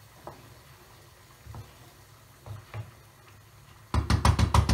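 Wooden spoon stirring grains and water in a frying pan on the hob, with a few soft knocks, then near the end a quick run of loud knocks and scrapes against the pan, about ten a second.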